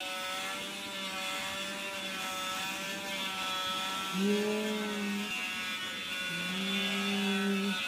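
Small handheld vacuum cleaner running with a steady motor hum as its nozzle is drawn over a cat's fur. Twice in the second half its tone steps up and gets louder for a second or so.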